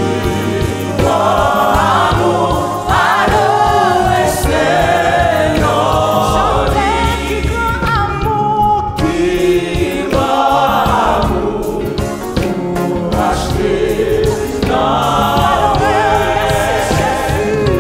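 Live gospel praise singing: a woman's lead voice sings a Haitian Creole worship song, backed by a choir and instrumental accompaniment.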